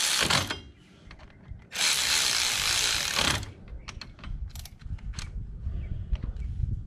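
Ratchet wrench tightening the brake caliper pins, clicking in two fast runs of about a second and a half each, then a few separate clicks as it is worked in short strokes.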